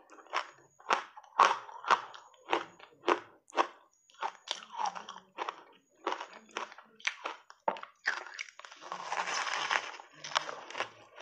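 Ice coated in dry matcha powder being bitten and chewed: sharp crunches about two a second, then a longer grinding crunch near the end as a fresh bite is taken.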